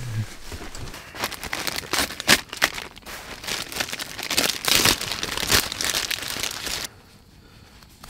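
Sausage packaging crinkling and rustling as a falukorv is unwrapped by hand, with irregular crackles that stop abruptly about a second before the end.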